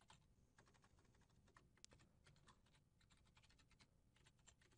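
Faint keystrokes on a computer keyboard, quick and irregular: a password being typed.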